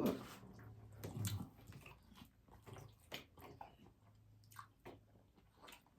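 Quiet chewing and biting: a scattered run of small crunches and mouth clicks from someone eating.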